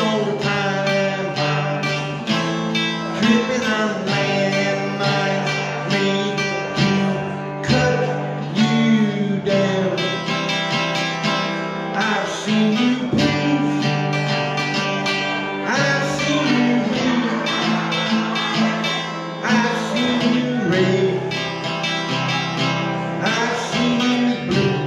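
Hollow-body archtop guitar strummed in steady chords, with a man singing over it at times.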